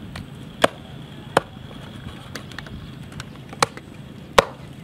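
Sharp clicks of a small knife cutting into a small piece of food held in the hand: four loud, irregularly spaced clicks and a few fainter ones, over a steady low background noise.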